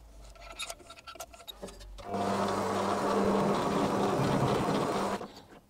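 A small metal lathe runs while knurling a bronze valve guide: a steady motor hum with a dense grinding rub as the knurling wheels press into the turning guide. It starts about two seconds in and cuts off near the end, after a few faint clicks while the guide is oiled.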